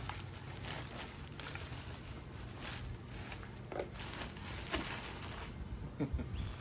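Handling noise while the boxed subwoofer is handled: light rustling with scattered clicks and small knocks, over a steady low hum.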